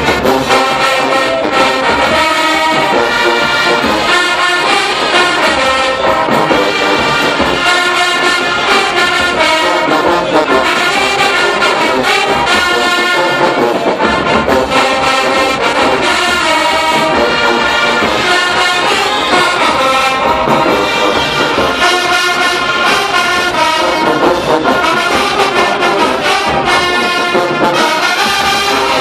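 HBCU show-style marching band playing loudly, a full brass section of trombones and trumpets carrying the tune without a break.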